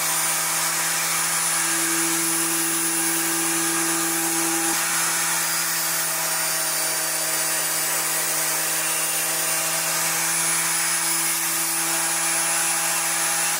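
An electric power-tool motor running at a steady speed: a constant hum with a steady whine and hiss over it, with no change in load.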